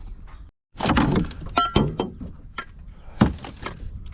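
Loose scrap metal clanking and clattering as it is handled: a string of sharp knocks, with a short metallic ring about a second and a half in.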